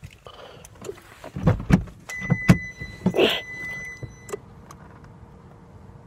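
Getting out of a parked car: a few knocks and thumps from the door and seat about a second and a half in, then a steady high warning tone from the car for about two seconds, with a rustle partway through, ending with a click.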